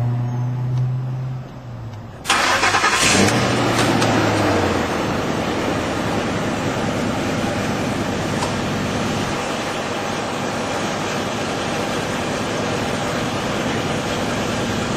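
Ford 5.4-litre Triton V8 starting with aluminum foil stuffed in its tailpipe: a brief steady whine, then the engine fires about two seconds in with a sudden loud blast of exhaust and settles into a steady idle.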